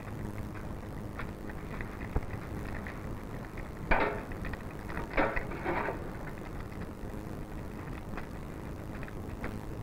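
Steady low hiss and hum of an old film soundtrack. About four to six seconds in come a few short clatters and scrapes, as a cup is worked in a large metal cooking pot to dip out boiling water.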